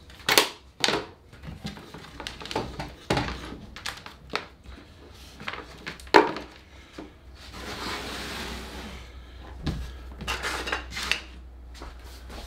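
Cables and test leads being unplugged and gathered up off a wooden workbench: scattered clicks, knocks and light clatter, with a couple of seconds of rustling scrape a little past the middle.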